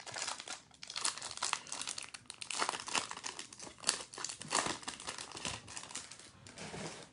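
Foil wrapper of a Topps Chrome trading card pack being torn open and crinkled by hand, a rapid irregular crackling with many short sharp crinkles that eases off near the end.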